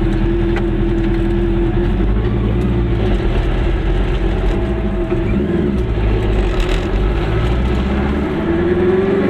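Goggomobil microcar's two-stroke twin engine heard from inside the car, running steadily and then rising in pitch near the end as the car accelerates.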